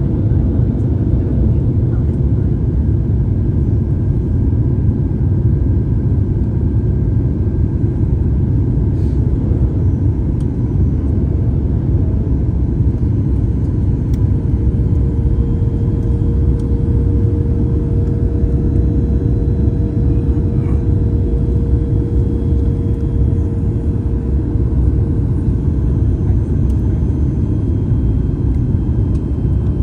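Steady low rumble of engine and airflow noise inside the cabin of a Boeing 737 in flight on approach. A faint steady hum comes in about halfway through and fades near the end.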